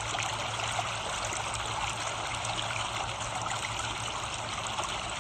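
Steady trickle of running water, with a low steady hum underneath.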